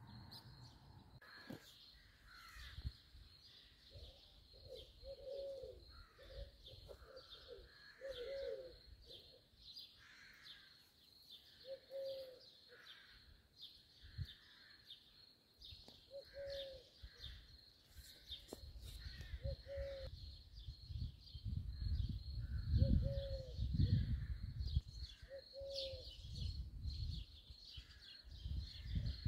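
Several birds calling: a short, low, arching note repeated many times at uneven intervals, over continuous high chirping. Low wind rumble on the microphone in the second half.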